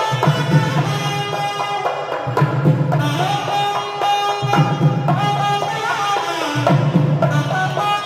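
Nadaswaram, the South Indian double-reed pipe, playing a melody of held notes and sliding ornaments, accompanied by thavil barrel drum strokes.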